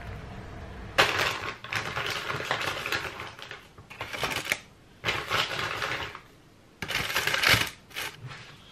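A last moment of coffee trickling from a stainless moka pot, then baking paper crinkling and rustling in repeated bursts as raw croissants are handled and set down on it.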